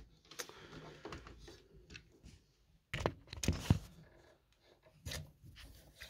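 Faint handling noises: a few soft knocks and rubs as hands twist an AIO cooler's block back and forth on the CPU to break the thermal-paste seal, with the clearest knocks around three seconds and five seconds in.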